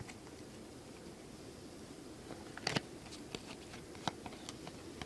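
Baseball trading cards handled and flipped through by hand: soft scattered clicks and light snaps of card stock, the clearest a little under three seconds in.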